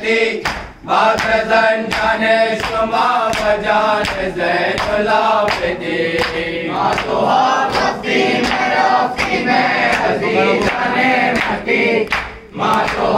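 A group of men chanting a nauha (Shia lament) in unison, with rhythmic matam: hands striking chests about twice a second in time with the chant. The voices break off briefly about a second in and again near the end.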